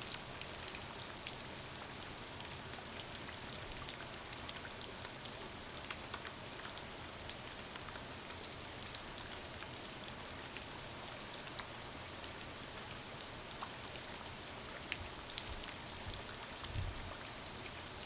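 Steady rain falling, a continuous hiss with many individual drops pattering close by, and a brief low thump about a second before the end.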